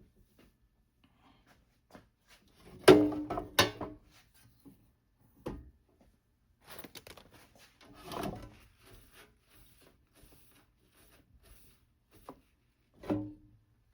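Scattered metallic clanks and knocks from a thin sheet-metal toolbox being handled and repositioned, the loudest pair about three seconds in ringing briefly.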